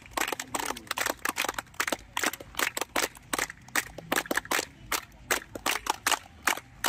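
A small group clapping hands: a run of sharp, uneven claps, several a second.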